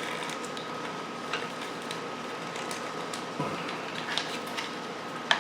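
Motorcycle wiring harness being handled and pulled free: a few scattered light clicks and ticks of wires and connectors over a steady background hiss.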